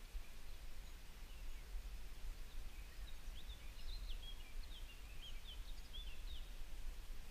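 A bird singing faintly, a run of short chirps and whistles through the middle few seconds, over a steady low rumble.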